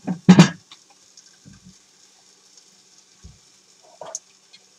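A ceramic plate knocking loudly once as it is taken out and handled, then a few faint knocks and clinks of kitchenware.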